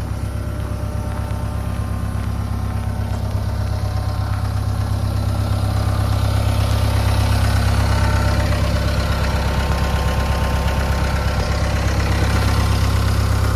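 Mahindra 2538 tractor's three-cylinder diesel engine idling steadily, growing slightly louder about halfway through.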